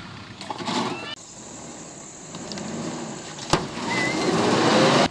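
A vehicle engine revving up, its pitch rising and the noise growing louder for about a second and a half until it cuts off suddenly. A single sharp knock comes just before it.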